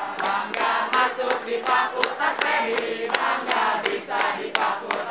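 A group of young voices chanting and singing a yel-yel cheer in unison, keeping time with rhythmic hand claps about three a second.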